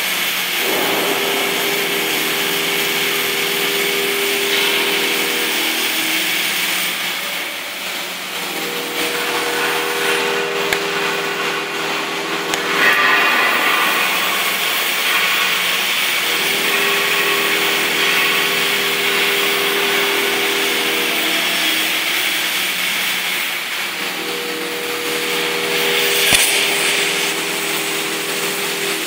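Oxy-fuel cutting torch on a CNC cutting machine, hissing steadily as it heats and pierces a steel plate. A low mechanical hum comes and goes every few seconds. A louder rush of gas comes near the end as sparks begin to fly from the cut.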